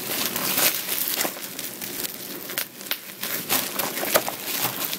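Plastic bubble wrap crinkling and rustling as it is handled and pulled open, with many short sharp crackles.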